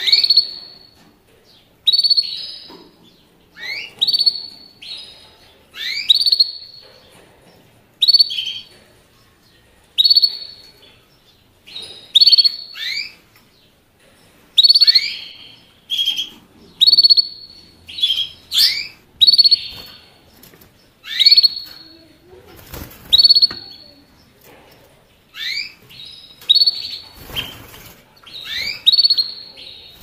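Canary giving short, bright chirping calls about once a second, many of them dropping in pitch, with a brief rustle near the end.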